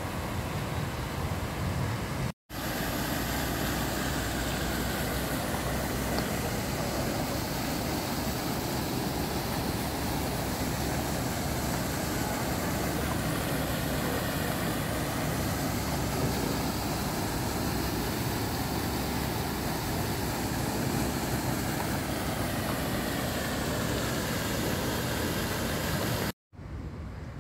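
Steady rushing splash of pond fountain jets and an aerator spouting water onto the surface, with a low rumble underneath. The sound breaks off for an instant a couple of seconds in and again near the end.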